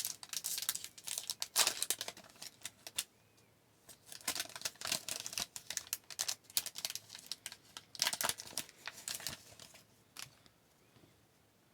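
A hockey card pack's wrapper being torn open and the cards handled and shuffled: crinkling and crisp paper clicks in three spells, with short pauses between.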